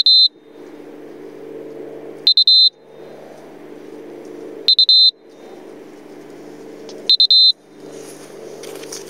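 Piezo alarm buzzer on a landed FPV quadcopter sounding in loud, high-pitched bursts of three quick beeps, repeating about every two and a half seconds, four times. A low steady hum fills the gaps between bursts, and grass rustles as someone walks up near the end.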